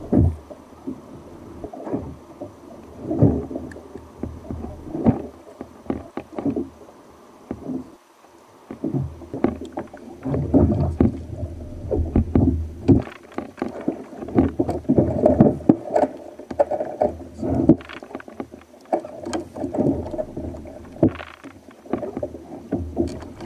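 Sea water slapping and gurgling against a kayak's hull in irregular splashes and knocks.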